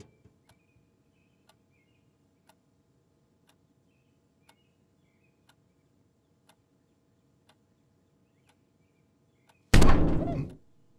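A clock ticking softly about once a second, with a few faint high chirps. About three-quarters of the way through comes one loud thud as the cat smacks flat against the window pane, dying away over about a second.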